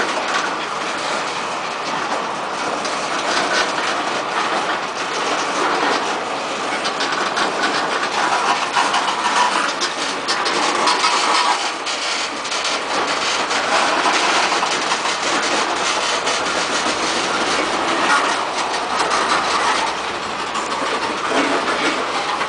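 CSX rock train's open-top hopper cars rolling past, a steady rolling noise with frequent clacks of the wheels over the rail joints.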